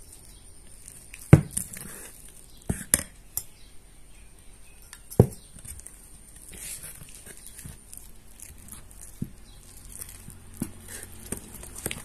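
Steel spoon stirring thick atta and suji batter in a stainless steel bowl, clinking sharply against the bowl several times, loudest in the first half, with softer taps later.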